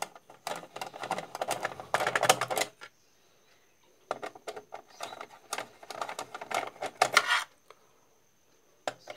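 Screwdriver backing out the top-cover screws of a mixer grinder's plastic housing: rapid clicking and scraping in two spells of a few seconds each, with a single click near the end.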